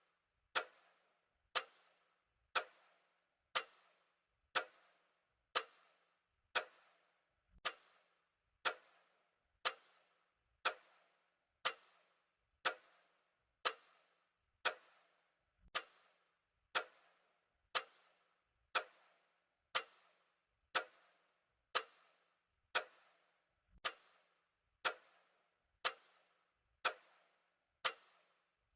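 Clock ticking steadily, about one sharp tick a second, each with a short ring after it.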